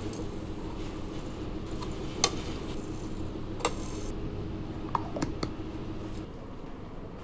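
Whole spices such as fennel seeds, coriander seeds, cardamom pods and cloves tipped from a plate into a steel grinder jar: a handful of sharp clicks and rattles, the loudest about two seconds in, over a steady background hum.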